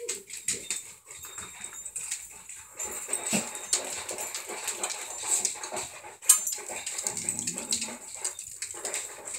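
A dog squeaking and whining in the background, over the crisp clicks of cats crunching dry dog food at their bowls, with one louder click about six seconds in.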